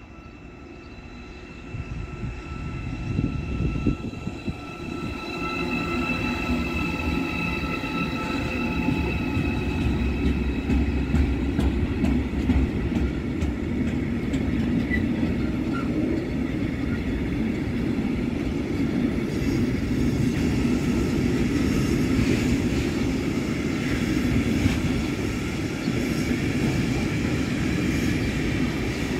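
Freight train of tank wagons rolling past: a steady rumble of wheels on rail that swells as the train arrives about two seconds in, with a faint high whine through the first half.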